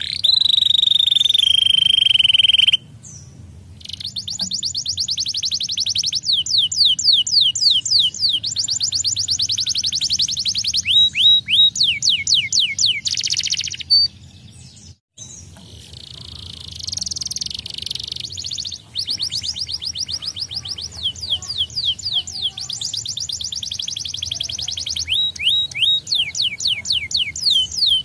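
Canary singing: fast trills of rapidly repeated falling notes in long runs, opening with a held whistle that slides slightly lower. The song breaks off briefly about three seconds in and again about fifteen seconds in.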